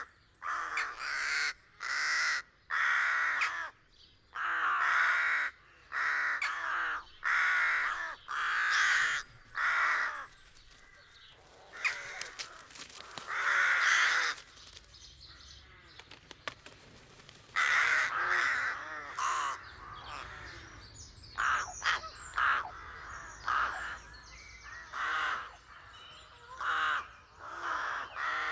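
Rooks cawing at a nesting rookery: a run of loud, harsh caws in quick succession. They thin out to a lull for several seconds midway, then pick up again.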